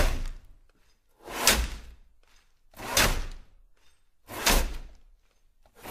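Long ice-harvesting saws cutting through frozen lake ice in a steady rhythm, one stroke about every second and a half. Each stroke is a sharp swish with a low thud in it, fading out before the next.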